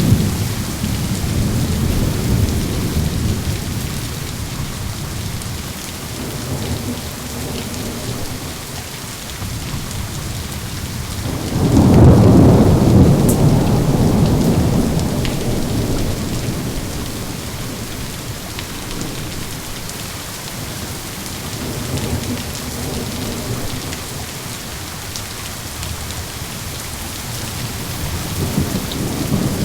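Steady heavy rain with rolling thunder. The loudest clap of thunder breaks in suddenly about twelve seconds in and rumbles away over several seconds, with weaker rumbles at the start, later on and near the end.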